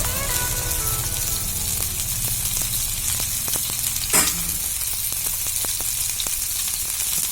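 Fish frying in oil on a flat tawa griddle: a steady sizzle with fine crackling. A single sharper sound comes about four seconds in.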